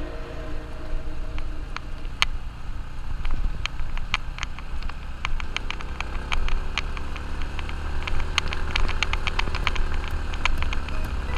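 Yamaha underbone motorcycle on the move: a steady low wind rumble on the microphone over the engine, with many scattered sharp clicks that come thicker in the second half.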